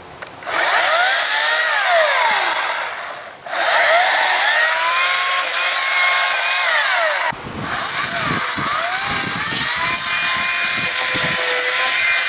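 Ryobi 40-volt brushless 14-inch battery chainsaw cutting limbs off a felled spruce in three spells with two short stops, its electric motor whine sliding up and down in pitch as the chain bites into the branches and frees again.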